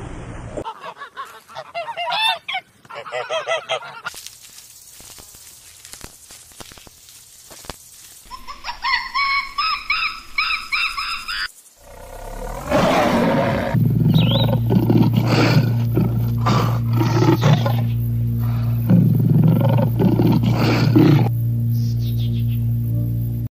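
A series of different animal calls, one after another, with cuts between them. The second half is a tiger's deep, repeated roaring growls over a steady low hum.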